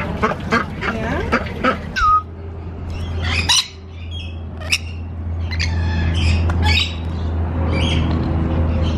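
Rainbow lorikeets giving harsh, short squawks, single calls at first and then several overlapping. It opens with a quick run of short quacks from ducks crowding at a feeding rail.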